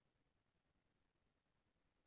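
Near silence, with no audible sound.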